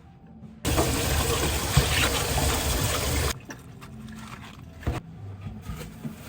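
Water running hard for about three seconds, switched on and off abruptly, as from a tap.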